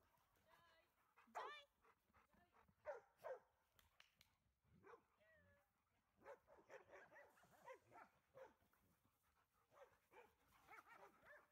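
Dogs at play giving faint short barks and yips, scattered through, the loudest about a second and a half in and around three seconds in.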